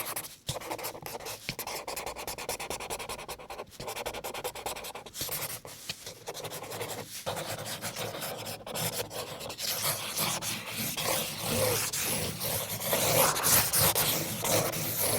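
Marker drawing on paper: continuous rubbing strokes of the tip across the sheet, broken by a few brief pauses and growing louder about ten seconds in.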